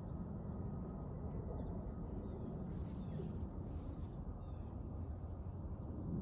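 Steady low outdoor rumble, with a few faint bird chirps above it.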